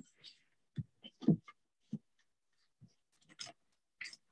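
Scattered short rustles and knocks of gear being handled and stuffed into a sea kayak's hatch, the loudest about a second in.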